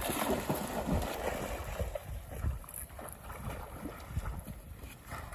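A dog plunges into shallow marsh water with a loud splash and swims out, water sloshing around it as it goes.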